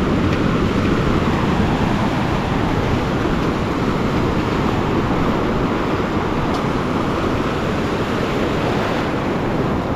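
Ocean surf breaking and washing over the shore, a steady rush of waves and foam, with wind blowing on the microphone.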